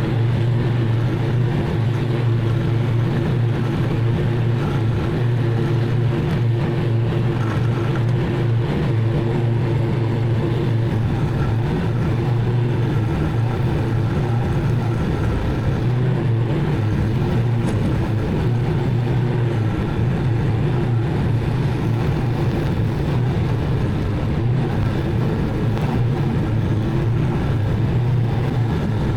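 Zero-turn mower engine running steadily at a constant speed, a continuous low hum with no change in pitch.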